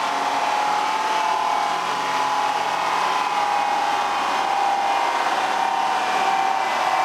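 Steady mechanical rushing noise, like a large blower, with a slightly wavering whine.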